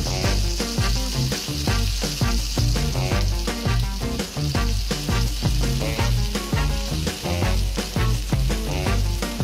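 Rice sizzling in hot oil in a pan with onions and pine nuts as it is toasted for pilaf, before the water goes in. Background music with a steady beat plays over it.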